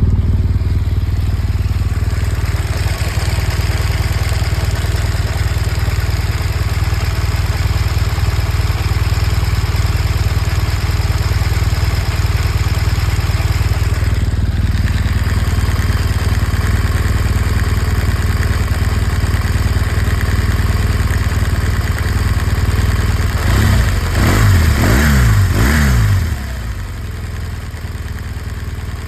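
BMW R1200 GS flat-twin engine idling steadily with a ticking noise whose source the owner does not know. About three quarters of the way through, the throttle is blipped a few times, the revs rising and falling, and it then settles back to a quieter idle.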